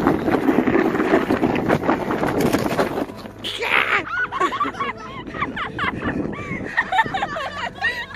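Snow crunching and scraping under a sled and the paws of two Alaskan Malamutes pulling it, a dense crackle that stops about three seconds in. After it, quick high sounds that swoop up and down in pitch take over.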